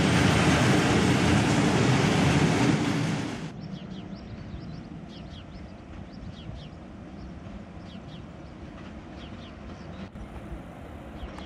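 Freight train's hopper wagons rolling past close by: a loud, steady rush of wheels on rail. About three and a half seconds in, it drops abruptly to a faint low rumble with short high chirps of birds.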